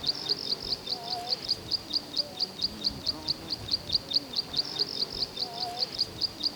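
A bird chirping in a rapid, steady series of short high chirps, about five a second, without a break.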